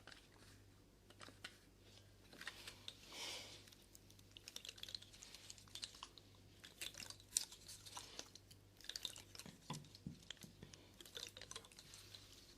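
Faint, irregular close-microphone clicks and crackles, with a soft rustle about three seconds in, over a low steady hum.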